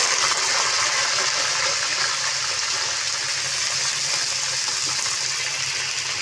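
Cauliflower florets sizzling steadily in hot oil in a kadhai, just added for frying.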